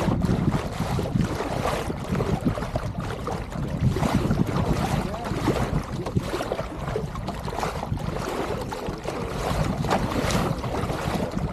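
Water rushing and splashing along the pram bow of a small SCAMP sailboat moving under sail, with gusty wind buffeting the microphone as a steady low rumble.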